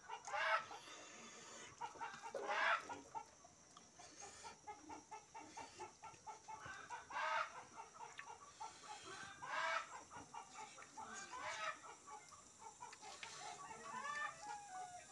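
Chickens clucking: a run of quick, short clucks through the middle, with louder calls every couple of seconds.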